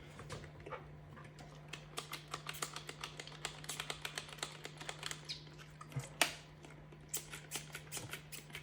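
Faint, irregular light clicks and rubbing from hands wiping and handling plastic fan parts with a damp cloth, over a steady low hum.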